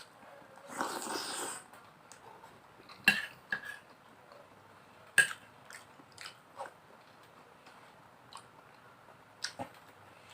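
A person chewing and biting food close to the microphone, with a short noisy burst about a second in and three sharp clicks of cutlery on a plate spread through the rest.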